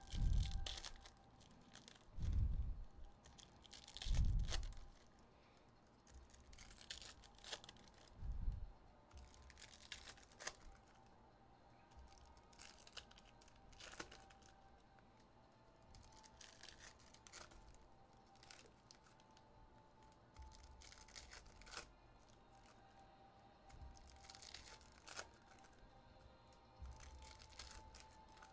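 Trading-card pack wrappers being torn open and crinkled, with cards handled and stacked. There are several dull thumps in the first nine seconds or so, then quieter scattered crackling and clicking.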